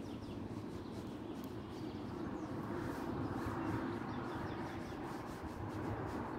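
Steady outdoor background noise: a low rumble under a soft hiss, with no clear single event.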